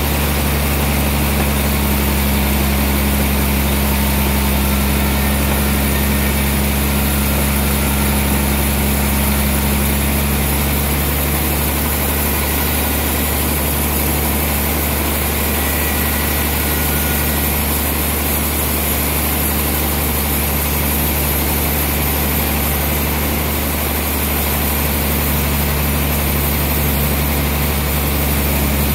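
Large log band saw running free with a steady low machine hum between cuts, while the log is being positioned.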